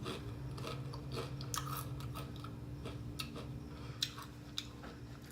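Close-up chewing and mouth noises of a person eating, with irregular small crunches and wet clicks, over a steady low hum.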